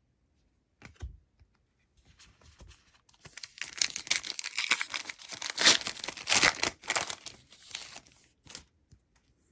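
A trading card pack's wrapper being torn open and crinkled. There is a single tap about a second in, then about five seconds of tearing and crinkling from around three seconds in.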